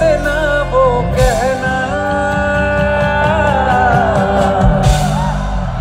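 Male singer performing live with a band through a concert sound system: a sung melody with long held, sliding notes over bass and drums.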